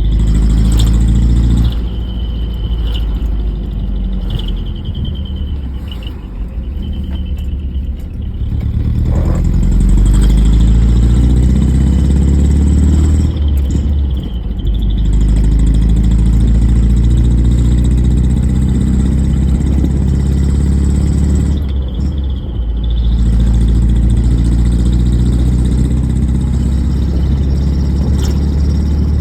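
Single-cylinder engine running through an exhaust fitted with a silencer insert, a low steady note that dips and is revved back up a few times.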